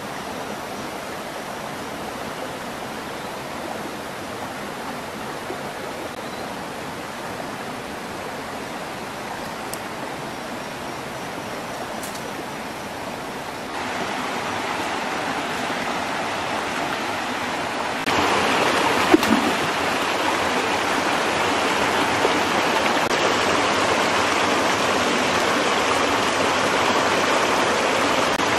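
Rocky forest stream running over stones: a steady rush of water that gets abruptly louder about halfway through and again a few seconds later.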